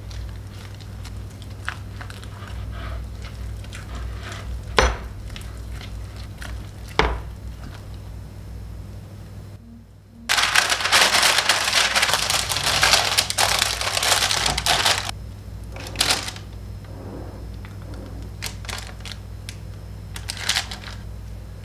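Kitchen preparation sounds: scattered knocks and clinks of utensils on bowls and the counter, then, about ten seconds in, some five seconds of loud crunching, scraping noise, with a few more knocks near the end.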